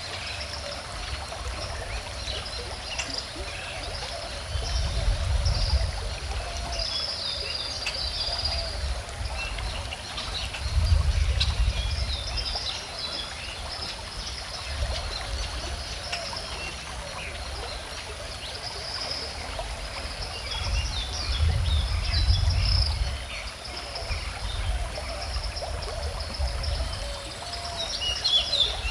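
Gently flowing river water with small birds chirping and singing throughout. A low rumble swells up three times, about five, eleven and twenty-two seconds in.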